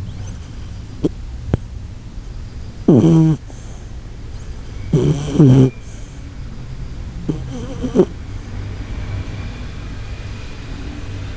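Shiba Inu snoring in its sleep: three pitched, horn-like snores about two seconds apart, each under a second long, with a steady low hum underneath.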